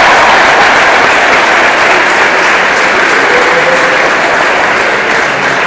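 A crowd of guests applauding, the clapping slowly dying down.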